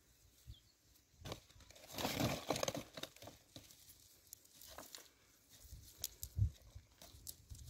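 Cast net mesh being lifted and dragged over dry leaves and gravel, a rustle and crackle of netting and debris. There is a louder rustling stretch about two seconds in, and a few soft taps.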